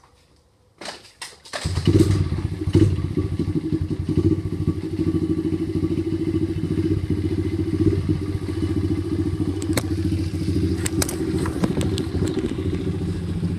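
Small three-speed dirt bike engine started cold with the choke on: a few thumps, then it catches about a second and a half in and runs steadily with an even, fast pulse.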